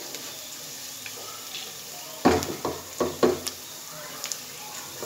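Sliced onions sizzling steadily in oil in a nonstick pot, with a quick run of four or so sharp knocks a little over two seconds in.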